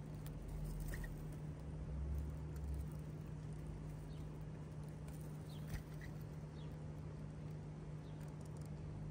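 Rain pattering steadily over a steady low hum, with a few faint, short, high chirps and a single click a little past halfway.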